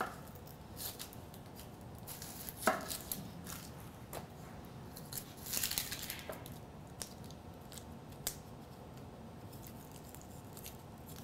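Chef's knife cutting a red onion on a wooden cutting board: scattered light knife taps and short slicing scrapes, with a sharper cut about two and a half seconds in and a longer slice past the middle.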